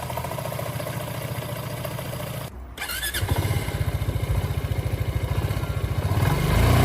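Zontes 350 scooter's single-cylinder engine running, after a cut at about 2.6 s louder and revving up near the end, with no loud noise from its freshly cleaned CVT transmission.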